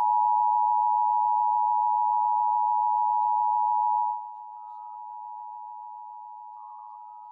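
Emergency Alert System two-tone attention signal: two steady tones just under 1 kHz sounding together without a break, dropping clearly in level about four seconds in. It marks the start of a required monthly EAS test.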